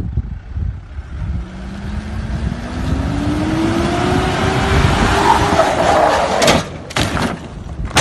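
An SUV's engine revs up as it accelerates toward and past the camera, rising steadily in pitch for several seconds and then easing off slightly. Near the end come a few loud, sharp knocks.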